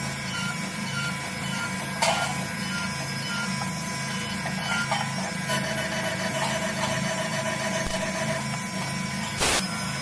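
CNC machine running: a steady machine hum with a few fixed whining tones, a sharp click about two seconds in and a short burst of noise near the end.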